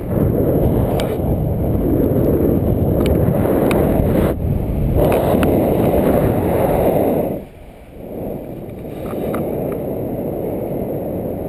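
Wind from a paraglider's flight buffeting the camera microphone: a loud, steady rush that cuts out briefly about four seconds in and turns quieter about seven and a half seconds in.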